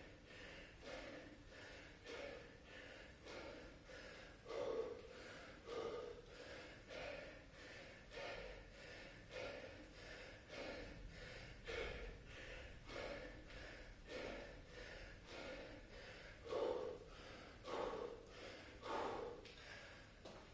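A man breathing hard and rhythmically from exertion during bodyweight squats: short, quick breaths about twice a second, with a stronger exhale about once a second.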